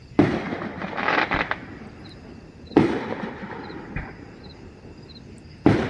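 Distant fireworks display: a sharp bang about a quarter second in followed by a second of crackling, a second bang near the three-second mark that rolls away, and a third bang near the end.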